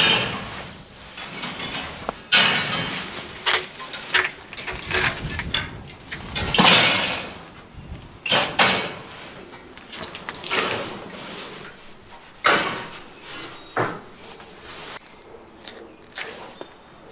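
Knife slicing through fat and meat on a camel carcass, in irregular scraping, tearing strokes.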